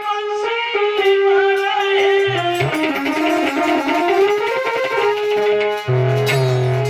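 Instrumental music interlude: a reedy wind-instrument melody over a steady held drone, with a run that dips low and climbs back in the middle.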